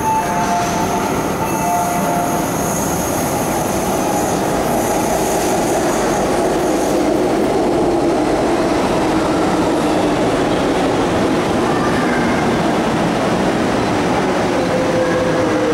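MTR Metro-Cammell M-Train electric multiple unit running on the track, heard from aboard: a loud, steady rumble of wheels on rail, with a high hiss that fades out about seven seconds in.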